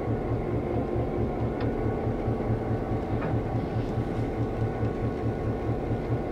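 N scale model train running along the layout track: a steady low hum that pulses several times a second, with a couple of faint clicks.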